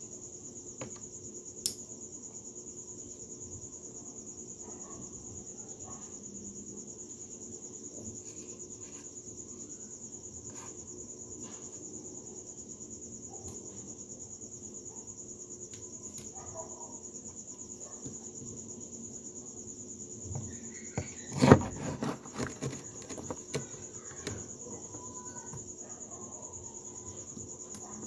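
Sharp small metal clicks and knocks of spinning-reel parts being handled and fitted, scattered through, with a cluster of louder ones about three quarters of the way through. Under them, a steady high-pitched insect chirring.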